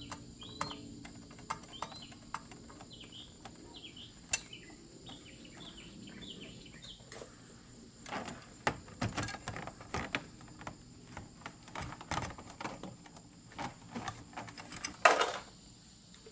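A bird chirping repeatedly in short rising notes through the first half, over scattered light clicks. From about halfway on come irregular clicks and clatter from a metal electrical box and its wires being handled, with one short, loud scrape near the end.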